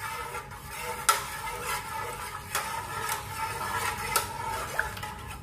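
A metal spoon stirring a cold coconut-milk mixture in an aluminium pot, scraping and clinking against the pot's sides every second or so. It is stirring tapioca starch into the cold liquid so that it dissolves before heating.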